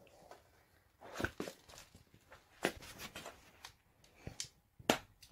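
Cat eating canned wet food from a plastic dish: irregular soft chewing and licking clicks, sometimes several a second, some louder than others.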